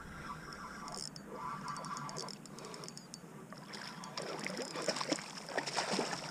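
Hooked speckled trout thrashing at the surface as it is reeled to the kayak: a quick run of splashes about two-thirds of the way in, the loudest part, after a quieter stretch of water lapping.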